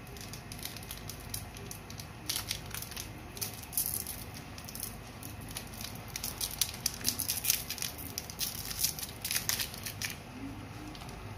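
Foil wrapper of a chicken bouillon cube crinkling and tearing as it is unwrapped: an irregular run of sharp crackles starting about two seconds in, busiest near the end.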